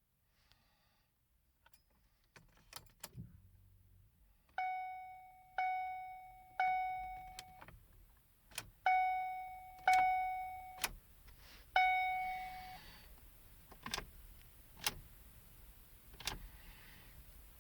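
2013 Ford Focus's electronic warning chime dinging in runs (three dings, then two, then one), with sharp clicks before, between and after. No engine cranking or running is heard, matching the car's no-start fault.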